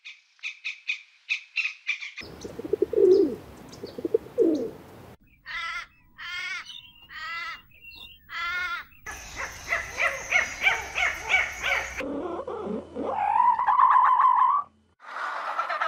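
Animal calls in a quick series of short clips. High rapid chirping comes first, then lower calls, then four long drawn calls about a second apart around the middle. Fast repeated chirping and a single rising call follow near the end.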